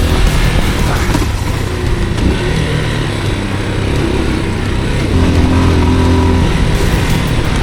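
Off-road motorcycle engine running while being ridden, its pitch shifting up and down with the throttle.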